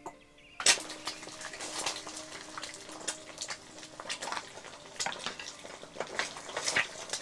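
Food frying in a pan: a dense sizzle with many sharp crackles and pops that starts abruptly and runs on steadily.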